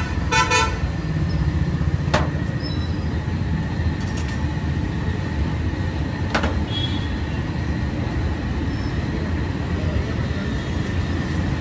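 Steady low rumble of street traffic, with a vehicle horn tooting briefly right at the start and two sharp clicks, about 2 and 6 seconds in.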